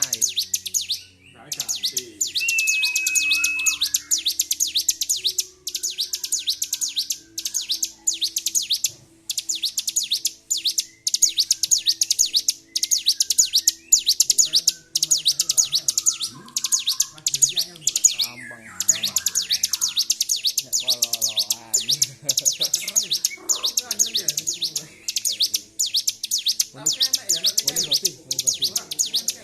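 A ciblek (prinia) singing nonstop in a highly excited state: bouts of rapid, high-pitched chattering notes strung together with only short breaks. A brief steady whistle comes about three seconds in.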